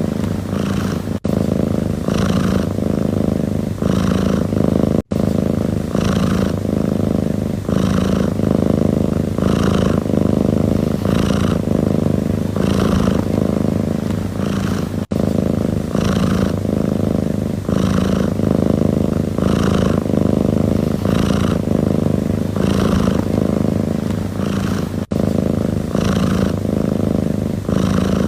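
Domestic cat purring steadily: a continuous low rumble with a breathy swell a little more than once a second as it breathes in and out. The sound cuts out for an instant a few times.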